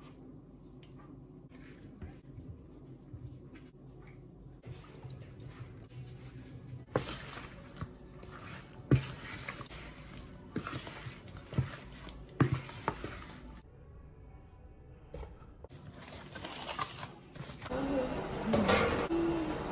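Marinated chicken pieces stirred in a large plastic bowl with a wooden spoon: wet squelching, with several sharp knocks of the spoon against the bowl. Before that, quieter light ticks as dry seasoning is shaken in.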